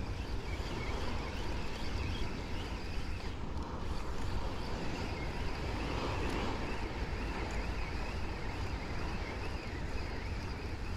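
Steady wind noise on the microphone over the sound of the sea.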